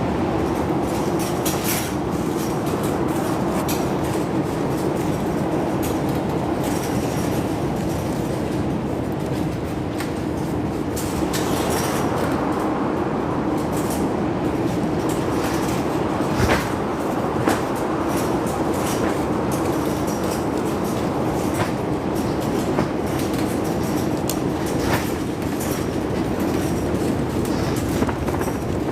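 Strong wind roaring steadily, with a band of howl in the middle and scattered clicks and knocks throughout.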